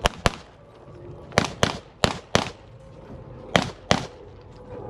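Eight pistol shots fired in four quick pairs, each pair about a third of a second apart, as a competitor puts two rounds on each target while moving through a practical shooting stage.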